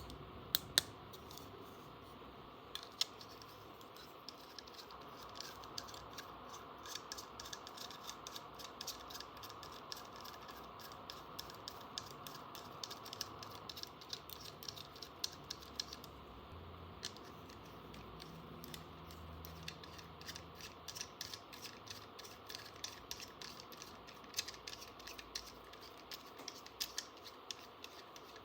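Small plastic toy pieces clicking and tapping against each other as they are handled, a continuous run of light, irregular clicks.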